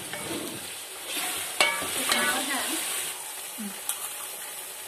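Chicken pieces sizzling as they brown in hot oil in an aluminium pot. A wooden spatula stirs and scrapes through them for the first three seconds, with a sharp knock about a second and a half in, then the pot is left sizzling steadily.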